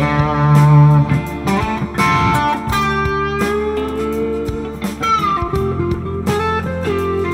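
Electric guitar: a Fender Roadworn 50s Telecaster played through a Mooer Hustle Drive overdrive, with an Xotic SP Compressor before it and an Xotic EP Booster after it, into a Fender '65 Deluxe Reverb Reissue. It plays a sustained, mildly overdriven blues lead with a long note bent slowly upward in the middle, over a backing track with drums and bass.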